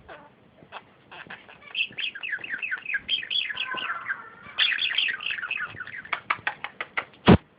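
Budgerigar chattering: rapid clicks and short chirps, with a long run of quick warbled notes rising and falling in the middle. One sharp, loud click near the end.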